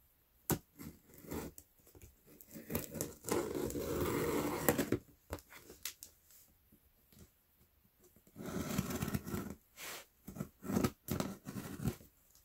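Scissors cutting and scraping through packing tape on a cardboard shipping box, with rustling of the box in irregular scratchy bursts. A sharp click about half a second in, and the longest stretch of scraping from about three to five seconds in.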